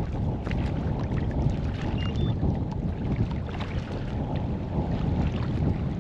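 Gusty wind buffeting the microphone and waves splashing against a kayak hull in choppy water. A pair of short high beeps sounds about two seconds in.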